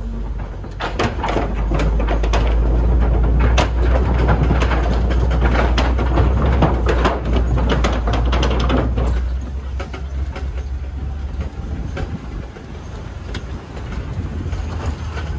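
Open-sided safari truck driving along a bumpy track: a steady low engine and road rumble with frequent rattling and knocking from the body as it jolts, busiest in the first half and easing off about ten seconds in.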